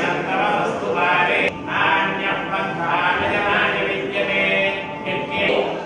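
A group of men chanting hymns in unison, a steady devotional recitation broken by short pauses about a second and a half in and near the end.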